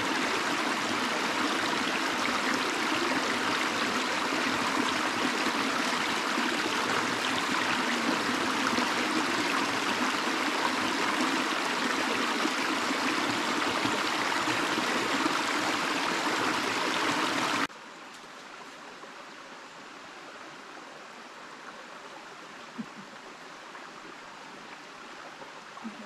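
Small woodland stream spilling over a low rocky cascade, a steady rush of water. About two-thirds of the way in it cuts off suddenly and gives way to a much quieter, gentler flow of the stream.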